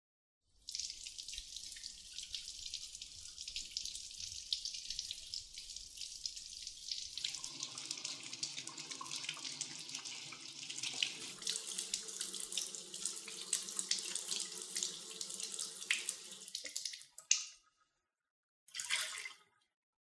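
Kitchen mixer tap running into a sink, its stream splashing over a vacuum cleaner brush bar held under it from about seven seconds in. The water stops a few seconds before the end, followed by one short splash.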